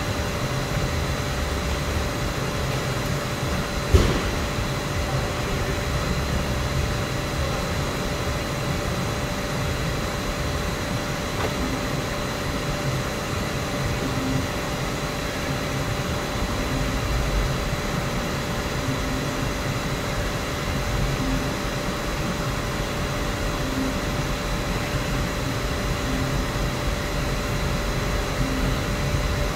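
Steady mechanical hum with a constant thin whine, even throughout, and one sharp knock about four seconds in.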